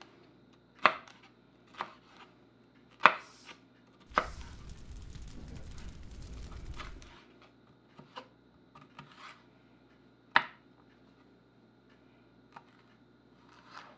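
Knife slicing a green bell pepper on a wooden cutting board: irregular single knocks of the blade on the board, a few seconds apart. A steady rushing noise with a low rumble runs for about three seconds in the middle.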